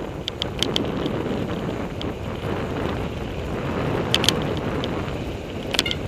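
Wind buffeting a helmet-mounted camera's microphone while a mountain bike rides a rough singletrack trail, with a steady rumble from the tyres and bike. Irregular sharp clicks and rattles come from the bike jolting over bumps, a pair of them just after four seconds.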